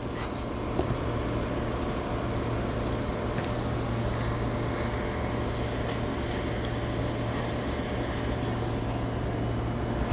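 Amtrak Northeast Regional train alongside, its cars' equipment giving a steady low mechanical hum with a few faint higher tones over it.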